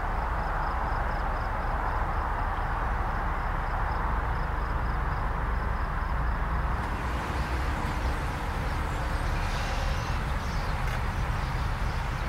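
Steady outdoor background noise with a low rumble and hiss. A faint high-pitched beep repeats about three times a second through the first half, and more high hiss comes in after the middle.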